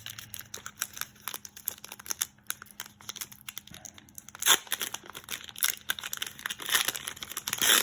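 A foil Pokémon card booster pack wrapper being torn open and crinkled in the hands, a run of crackly rustles with louder rips about four and a half seconds in and near the end.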